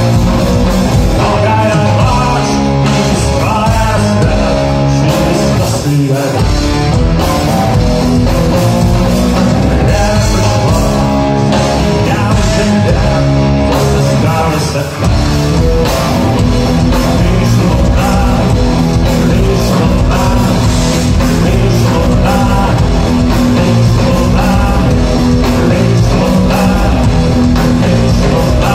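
Rock band playing loudly live through a concert PA: electric guitar and bass over a steady beat.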